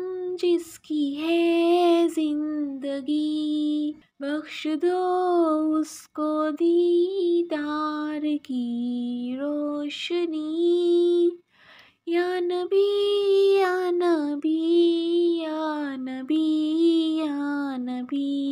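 A woman singing an Urdu naat solo and unaccompanied, in long, held melodic phrases separated by short pauses.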